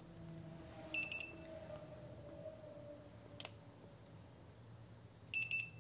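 Handheld infrared thermometer beeping as temperature readings are taken off an electric scooter's hub motor: a short beep about a second in and two short beeps near the end, with a sharp click in between.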